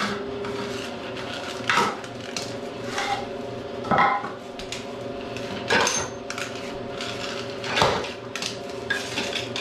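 Wooden sticks and steel being handled while blocking is set under a heavy milling machine. About five sharp knocks and clanks come at uneven gaps over a steady low hum.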